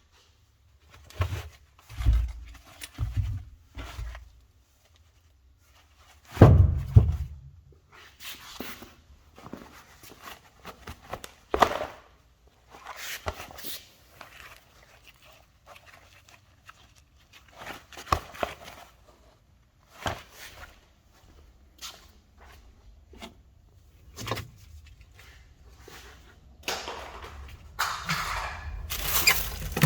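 Scattered knocks, thumps and clicks of interior parts and tools being handled as an old car's interior is taken apart, with a heavier thump about six seconds in. Near the end comes a longer stretch of rubbing and scraping.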